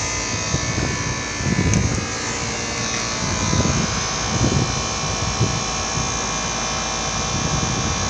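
Outdoor heat pump condensing unit running: a steady buzzing hum from its compressor and fan, with low rumbles coming and going. The compressor's buzz is taken by the listener for one maybe on its last legs.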